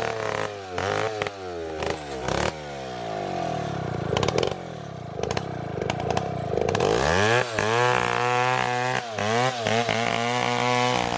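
Two-stroke chainsaw ripping a coconut-palm log lengthwise into boards, its engine speed rising and falling with the cut. From about two and a half seconds in the revs sag slowly, then from about seven seconds it revs up hard again in repeated surges.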